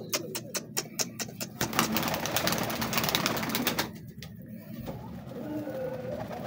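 Flock of domestic pigeons pecking grain off a hard floor: a quick run of sharp clicks, then a denser clatter of pecking. After a short lull, low pigeon coos sound near the end.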